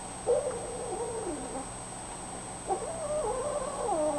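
Kittens meowing: two long meows, the first falling in pitch, the second near the end higher and wavering before it drops.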